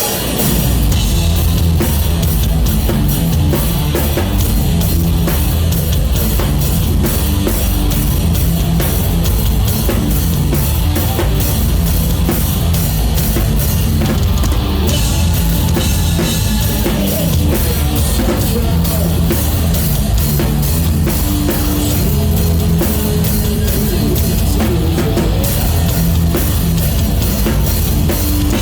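Live rock band playing a song at full volume: a drum kit driving a fast, steady beat with distorted electric guitars and bass guitar, kicking in together at the start.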